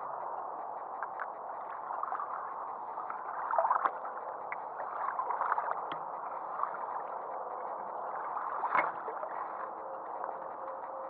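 Light water lapping and gurgling, mixed with the rustle and scattered clicks of a gloved hand handling the rod and camera, and one sharper knock about nine seconds in.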